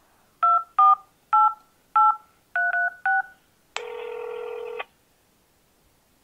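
Phone keypad touch tones: about seven short dual-tone beeps as a number is dialed, followed near the middle by one steady tone lasting about a second.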